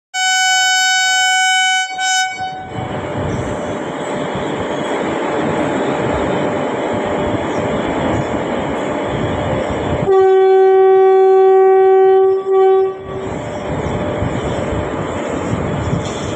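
WAP4 electric locomotive horn: one long blast and a short toot, then the rumble of the train running. About ten seconds in comes a second long, lower-pitched blast and a short toot, and the running rumble continues.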